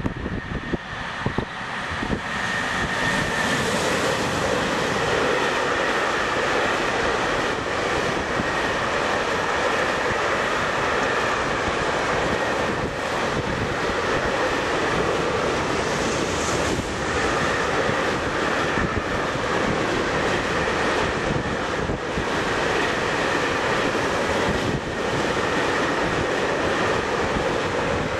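Long freight train of covered hopper wagons rolling past close by, its wheels running on the rails. The noise builds over the first two seconds as the train arrives, then holds steady, with a few short knocks now and then.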